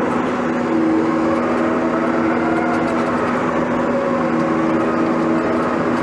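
Case 1150M bulldozer's diesel engine and drive running steadily as it grades dirt, heard inside its very loud cab: a constant drone with higher tones that slide gently up and down.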